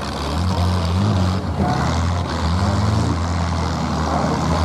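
Several demolition derby cars' engines running in a low rumble, revving up and down as the cars push against each other.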